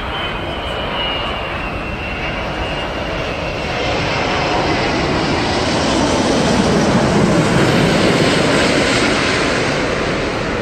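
Airbus A380's four jet engines on landing approach as it passes low overhead: a loud engine noise that builds to its loudest about seven to eight seconds in and then begins to fade. A high whine slides slightly lower in pitch in the first few seconds.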